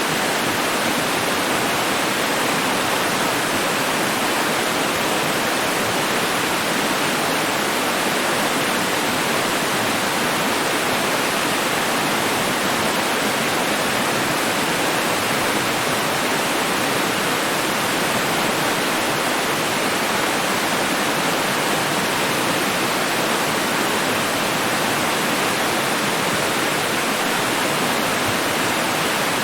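Running water rushing steadily and evenly, without a break or change.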